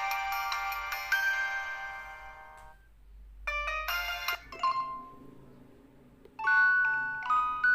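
Ringtones and alert tones of a Samsung SCH-F309 phone playing through its small speaker. A chiming electronic melody fades away, a short jingle of chime notes comes about three and a half seconds in, and another chiming melody begins about six and a half seconds in.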